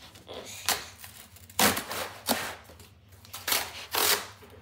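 Cardboard shipping box being torn open by hand: about five short rips and scrapes of cardboard and packing tape.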